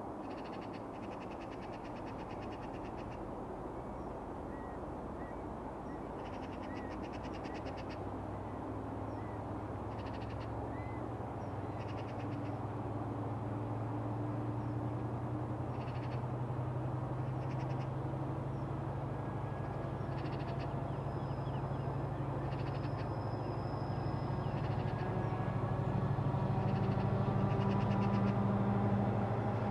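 Class 70 diesel locomotive's GE PowerHaul V16 engine working hard with a loaded container train, a deep steady engine drone that grows gradually louder as the locomotive approaches. Birds call faintly in the background.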